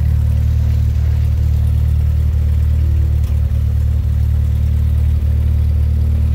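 Single-engine light aircraft's engine and propeller running steadily, a loud low drone heard inside the cabin.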